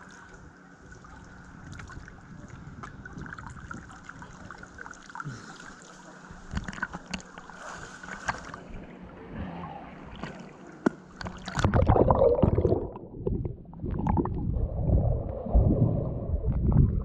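Muffled water sloshing and gurgling around a camera held in the water, with scattered small knocks. Partway through it turns into louder, irregular low rumbling.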